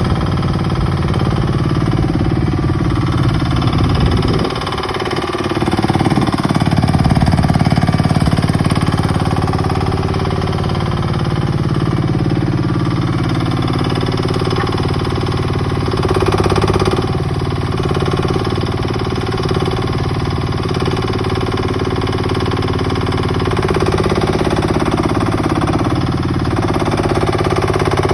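Two-cylinder water-cooled diesel engine of a 1-ton KA12 mini excavator running steadily, its pitch dipping and recovering briefly about four to six seconds in.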